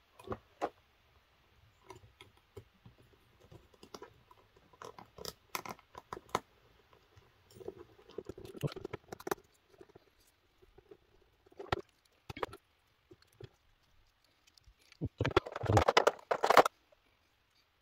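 Small plastic clicks, taps and rattles of an action figure and its accessories being handled and fitted together, with a denser burst of plastic clattering near the end.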